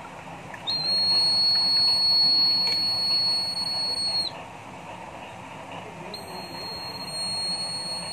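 Small battery-powered buzzer of a homemade water alarm sounding a steady high-pitched beep twice: once for about three and a half seconds, then again from about six seconds in. It sounds when water bridges the alarm's two wire contacts and completes the circuit.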